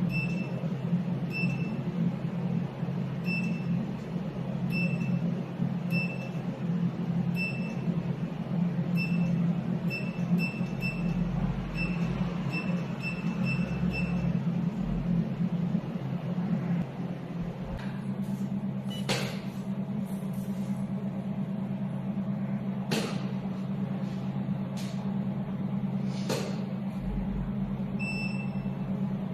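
Water-cooled 200 W jewelry laser welding machine running with a steady low hum. Short high beeps repeat irregularly through the first half, some in quick runs, and a few sharp clicks follow in the second half.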